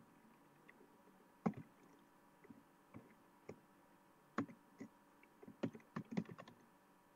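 Computer keyboard keystrokes, irregular single clicks at first and a quicker run of several clicks about two-thirds of the way through.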